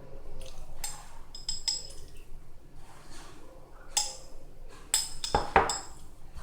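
Cutlery and dishes clinking: a series of short clinks and taps, with the loudest knock about five and a half seconds in.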